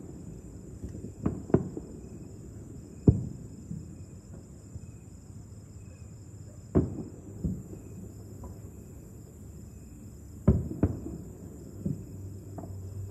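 Aerial fireworks bursting far off across a city: about eight or nine irregular bangs, the loudest about three seconds in, with pairs near one and a half and ten and a half seconds. Crickets chirr steadily behind them.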